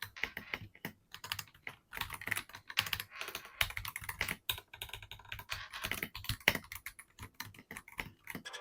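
Typing on an Akko 5075B Plus mechanical keyboard: fast, irregular runs of keystrokes clacking on the switches.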